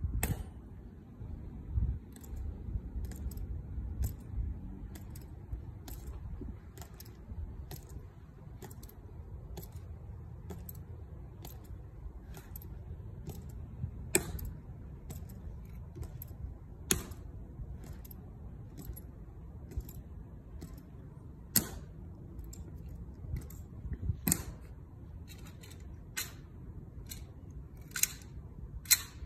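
Tomb Guards' metal-tapped shoes clicking sharply on the marble plaza as they march, about one click a second, with several louder clicks and snaps.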